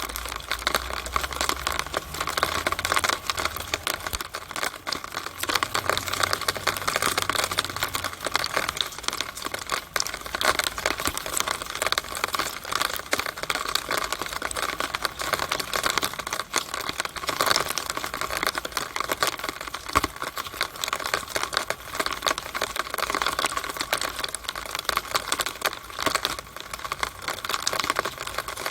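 Rainwater in a downspout during rain: a dense, irregular patter of drips and splashes inside the drainpipe, steady throughout.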